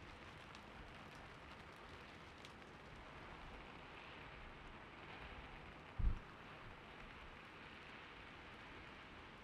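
Gentle steady rain, a soft even hiss, with a few faint clicks in the first seconds and one short low thump about six seconds in.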